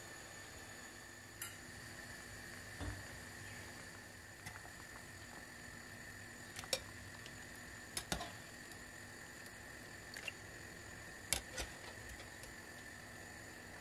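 Metal spider strainer knocking and clinking against the pot and a glass bowl as boiled tangerine peels are scooped out, about half a dozen sharp knocks scattered over a steady faint hum.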